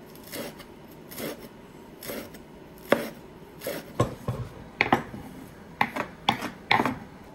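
A knife chopping fresh basil on a wooden cutting board, one stroke about every second. About halfway through come quicker, sharper knocks as the knife scrapes the chopped basil off the board into a stainless steel bowl.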